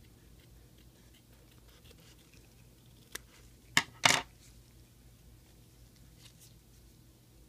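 Plastic-gloved hands handling a pleated three-ply disposable face mask: faint crinkling and rustling of the mask fabric and gloves, with a small tick and then two short, sharp rustles close together about four seconds in as the mask's pleats are pulled open.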